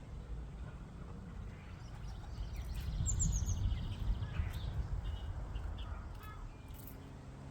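Small garden birds chirping, with a quick run of about four high, falling notes about three seconds in and scattered short calls after it, over a steady low rumble.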